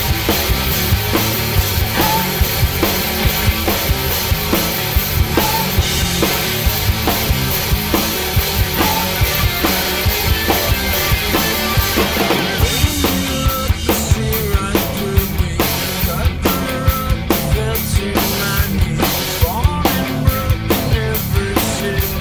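Rock drum kit played hard: a DW Collector's maple-mahogany kit with a DW Truecast bell-brass snare, bass drum and Meinl cymbals, driving along with a hard-rock band track. From about halfway the pattern turns choppier, with sharply separated accented hits.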